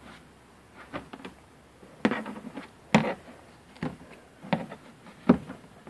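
Steel butter knife scraping frayed plastic burrs from the edge of a freshly hole-sawn hole in a plastic tote: a string of short, irregular scrapes and clicks, about seven in all.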